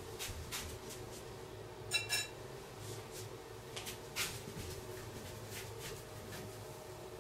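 Tableware being handled: scattered light clicks and clinks, with two quick ringing clinks about two seconds in, over a faint steady hum.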